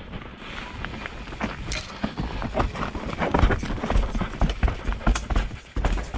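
Mountain bike descending a rough dirt singletrack: tyres rolling and crunching over stones and roots, the bike clattering with fast, irregular knocks, and heavy low thumps over bumps that get stronger about halfway through.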